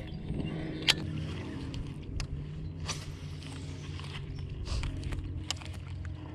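Fishing reel being cranked as a topwater frog lure is retrieved, with scattered sharp ticks and a louder click about a second in. Under it runs the steady low hum of the boat's electric trolling motor.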